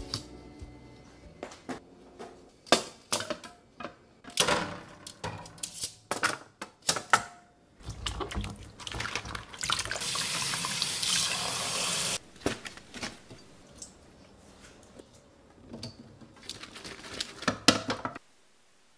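IKEA KLOCKREN extendable stainless steel mesh colander clinking and knocking as it is handled, then tap water running hard onto vegetables in the colander for about four seconds, followed by more light clatter that cuts off suddenly near the end.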